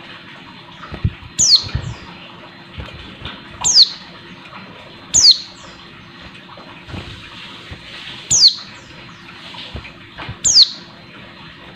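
Female white-eye (pleci) giving short, sharp, high calls that slide downward, five of them one to three seconds apart: the call a female uses to summon a male. Soft low thumps come from the bird hopping between the perches of its cage.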